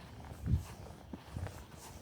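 Footsteps of a person walking on a street: a few dull, low thumps, the loudest about a quarter of the way in.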